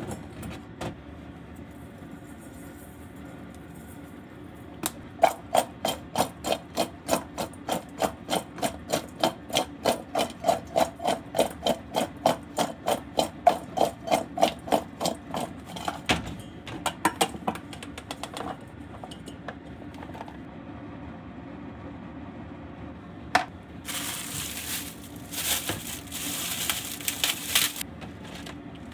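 Cut cucumber and green pepper shaken in a stainless steel bowl: a fast, even run of knocks, about three or four a second, lasting around ten seconds. Near the end, a crackly rustle of plastic wrap being pulled off a head of lettuce.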